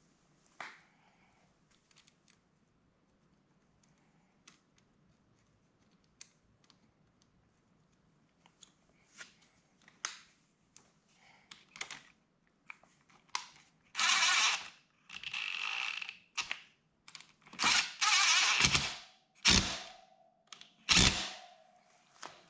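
Light clicks and taps of tools and metal parts being handled, then, from a little past halfway, several bursts of about a second each from a cordless power driver running the front sprocket's retaining screw in.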